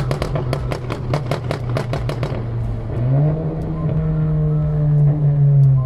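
Volkswagen Golf hatchback exhaust giving a rapid run of pops and crackles, about seven a second, for roughly two seconds. Then the engine note rises and holds steady as the car pulls.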